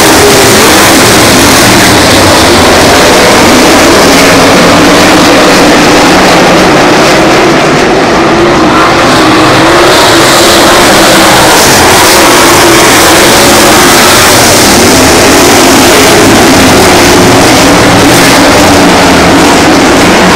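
A field of dirt-track race cars running hard around the oval, their engine notes rising and falling as they lap. The sound is so loud that it overloads the microphone.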